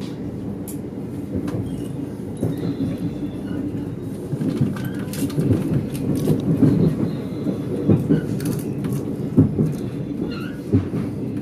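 Cabin noise of a Stadler FLIRT passenger train on the move: a steady rumble of wheels on rail that grows louder about a third of the way in, with scattered clicks and knocks from the track.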